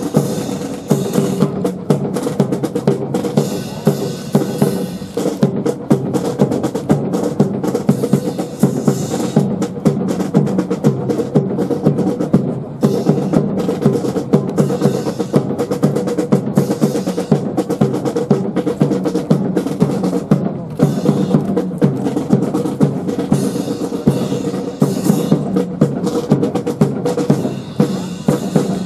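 Military band playing a march: sustained brass over a steady beat of bass drum and snare.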